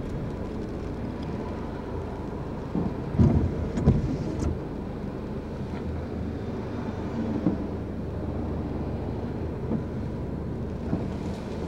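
Car cabin noise while driving: a steady low rumble of engine and tyres, with two short thumps about three and four seconds in.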